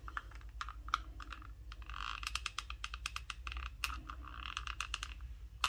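A run of light, irregular clicks with soft rustling from a hot glue gun and crocheted pieces being handled to glue a leaf on, over a faint low hum.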